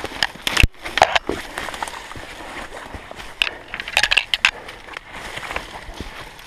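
Footsteps crunching through dry fallen leaves and twigs, with branches brushing and snapping against clothing, in irregular crackles and scrapes.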